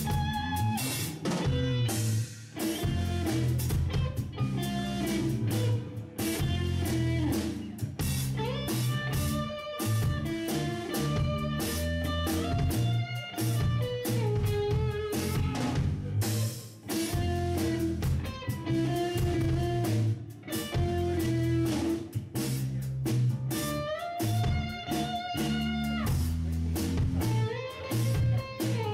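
Instrumental progressive rock band playing. An electric guitar leads with a melodic line whose notes slide up and down, over a deep bass line and steady drum-kit hits.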